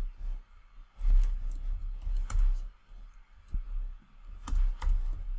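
Computer keyboard keystrokes: a few scattered taps and short runs of typing with pauses between.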